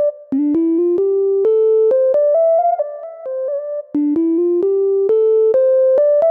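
Synthesizer keyboard playing a single-line melody in held, steady notes. A short phrase starts low and climbs, then repeats about four seconds in.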